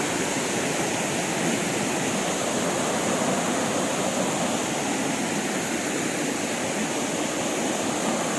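Small tiered waterfall running over rock slabs, full with rainy-season water: a steady, even rushing of falling water.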